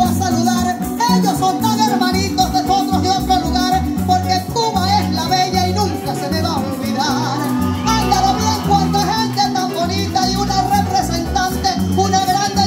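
Live llanero band playing an instrumental passage between sung verses: strummed cuatro and electric bass with a steady, rhythmic beat.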